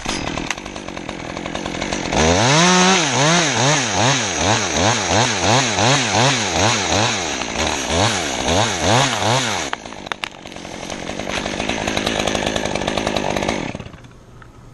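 Two-stroke chainsaw running: after a low start it revs up about two seconds in and surges up and down about twice a second, then settles to steadier running and cuts off about a second before the end.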